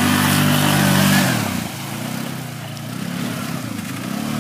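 ATV engine revving: it holds high revs for about a second and a half, then drops off as the throttle eases, and climbs again near the end.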